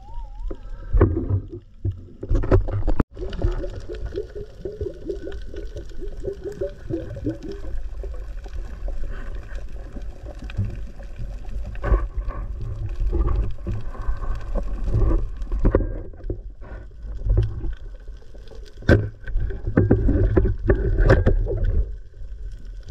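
Muffled underwater sound picked up by a diving camera: a steady low water rumble with gurgling and scattered knocks. The sound drops out for an instant about three seconds in.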